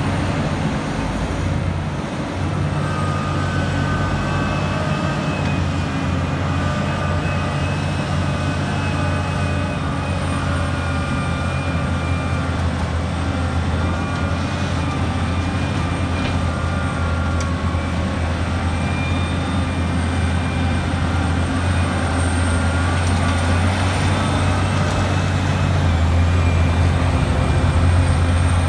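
Liebherr 984 crawler excavator's diesel engine running steadily under load while digging and loading a dump truck, growing a little louder near the end.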